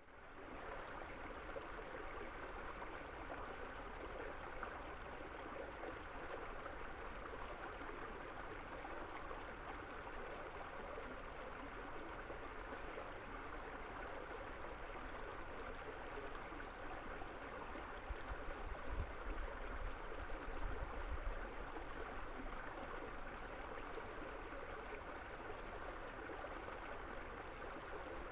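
Steady rush of water flowing over a beaver dam, an even running-water noise without breaks. Low rumbles come through about 18 to 21 seconds in.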